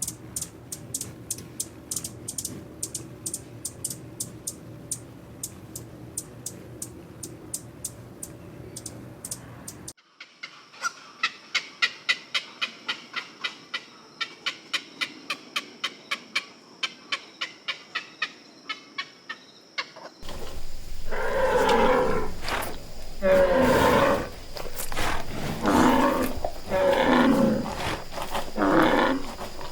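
Even, quick clicking, about three clicks a second, turning sharper and more ringing about ten seconds in. About twenty seconds in, a big cat starts roaring in a run of loud bouts.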